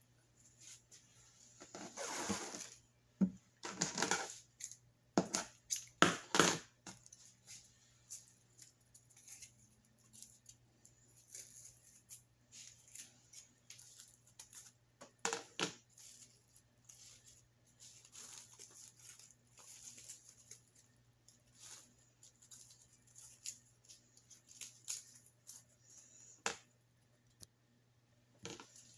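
Handling noise from a fabric-flower corsage being worked by hand: rustling and crinkling of artificial flowers and tulle, with sharp clicks and taps. The loudest rustles and clicks come in a cluster over the first several seconds, then fainter, scattered clicks follow.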